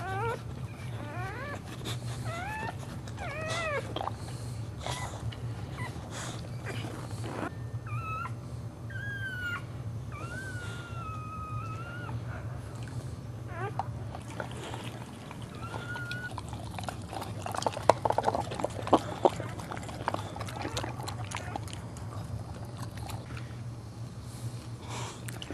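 Boxer dog whining while giving birth: short rising-and-falling whimpers in the first few seconds, then longer drawn-out whines, over a steady low hum. A few sharp clicks come about two-thirds of the way in.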